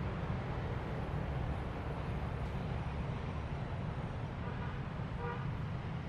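Steady low rumble of city road traffic, with a short higher-pitched note about five seconds in.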